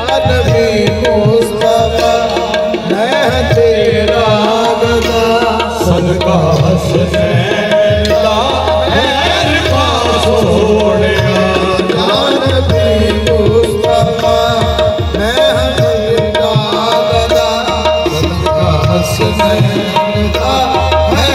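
Qawwali music: tabla drumming under a wavering melody with a steadily held note.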